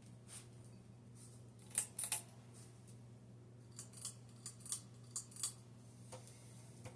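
A 52-inch Hunter Infiniti ceiling fan's motor running on low speed with a faint, steady hum. Scattered sharp clicks and ticks sound over it, the loudest about two seconds in.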